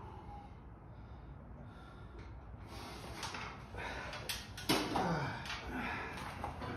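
A weightlifter settling onto a flat bench under a loaded barbell: sharp clicks and knocks from shifting on the bench and gripping the bar. About halfway through comes the loudest sound, a sharp breath whose pitch falls away over half a second, as he braces for the lift.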